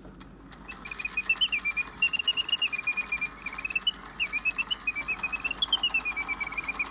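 Circa 1920 Karl Griesbaum singing bird automaton in song: a fast warbling whistle of quick chirps that rise and fall, starting just under a second in. Under it runs the steady rapid clicking of its clockwork and bellows mechanism.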